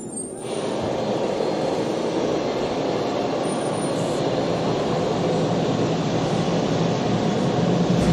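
A steady, loud rushing noise starts abruptly about half a second in and runs on evenly, with a faint low hum joining near the end.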